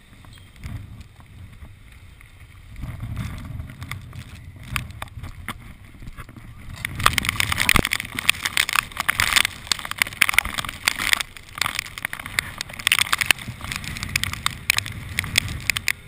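Small open boat under outboard power moving through storm flood water: a steady low rumble of motor, water and wind. From about seven seconds in, a dense crackle of rain and spray spatters against the camera.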